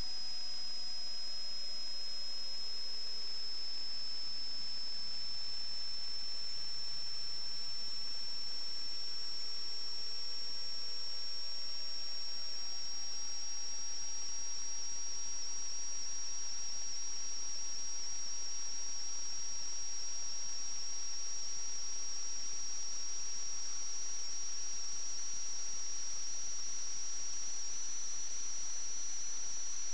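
Steady electronic hiss with a high-pitched whine that creeps slowly upward in pitch, and a fainter tone that glides down and then back up during the first half. This is interference picked up by the sewer inspection camera's recording system, and no work sounds are heard.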